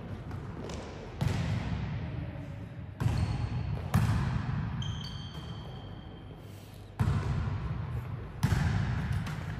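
Volleyballs being struck hard in training: five sharp hits spread across the stretch, each ringing out in the echo of a large sports hall, with a few brief high squeaks around the middle.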